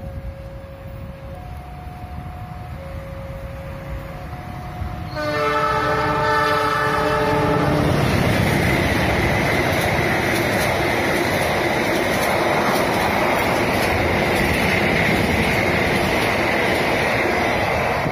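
A level-crossing warning alarm sounds its alternating two-tone signal. About five seconds in, a locomotive horn blows one long blast of about three seconds. Then the train runs past loudly, its wheels clacking over the rail joints.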